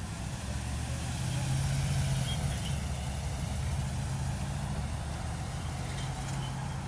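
City street traffic, with a truck's engine running steadily close by.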